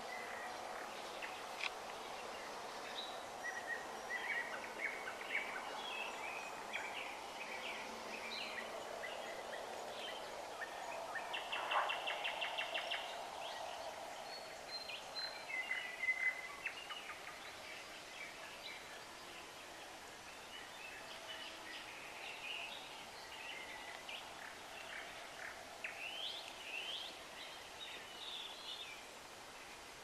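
Several songbirds singing and chirping in short scattered phrases over faint steady background noise. Near the middle one bird gives a fast, even trill lasting about a second, the loudest call.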